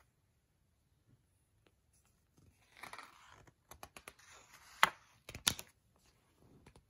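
A picture book's paper page being turned by hand: a soft sliding rustle about two and a half seconds in, then a run of sharp crackles and snaps as the page flips over, the two loudest a little past halfway.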